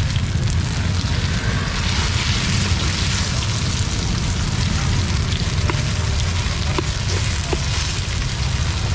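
Oil sizzling steadily under chive cakes pan-frying on a large round griddle, with a few light clicks from a metal ladle in the second half.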